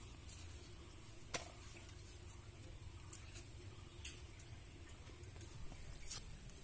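Faint crackling and a few short sharp clicks of garlic cloves being peeled by hand, the papery skins tearing; the loudest click comes about a second in.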